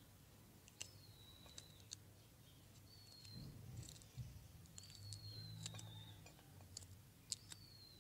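Faint sharp clicks of a tiny knife cutting a small piece of vegetable over a miniature steel bowl, with a bird's short whistled note, falling slightly, repeated four or five times. A faint low rumble rises in the middle.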